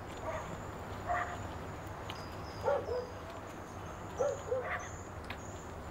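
A dog barking several times, some barks in quick pairs.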